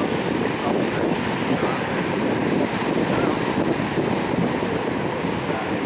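Steady rush of churning water from a passing paddle steamer's wheels and wash, mixed with wind buffeting the microphone.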